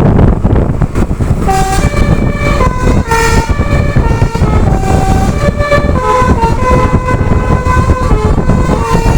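A telolet basuri bus horn, a set of air horns, plays a tune of stepped notes starting about a second and a half in, over a steady low rumble.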